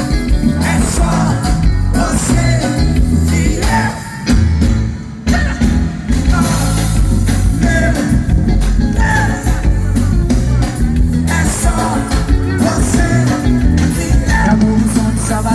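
Loud live band music with heavy bass and drums and some singing. The sound drops briefly about four and five seconds in.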